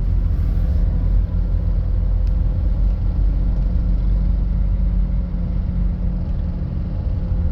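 Tour bus engine running with a steady low rumble, heard from inside the bus.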